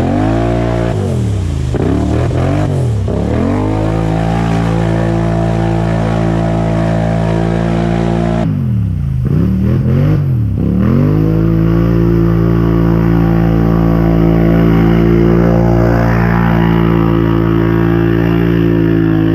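ATV engine revving up and down a few times, then running at a steady speed. About eight seconds in it revs up and down again, then settles into a steady drone.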